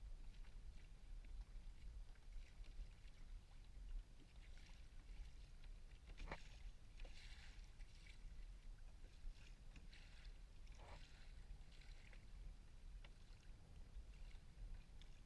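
Faint kayak paddle strokes: soft splashes and drips as the blade dips and lifts out of the water, about once a second, over a low steady rumble.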